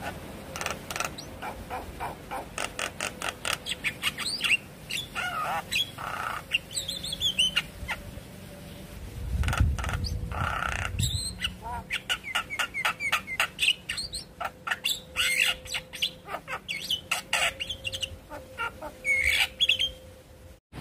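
Javan myna singing a long, varied chattering song: fast runs of sharp clicking notes mixed with whistled glides and harsh squawks.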